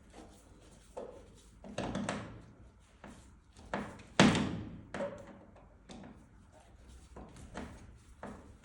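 Irregular knocks and clunks of parts being handled, the loudest a sharp thud about four seconds in.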